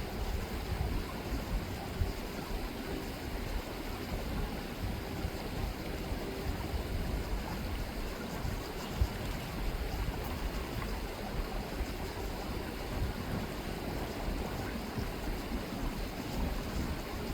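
Chilliwack River water rippling and flowing steadily, a continuous noise heaviest in the low end. One short knock about nine seconds in.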